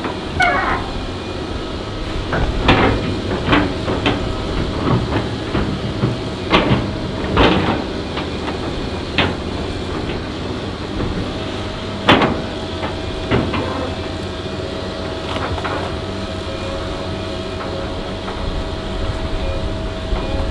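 Stuck John Deere tracked excavator's diesel engine running under load while it works its boom and bucket to free itself, with repeated heavy metallic clanks and knocks. About halfway through, a steady whine sets in and holds to the end.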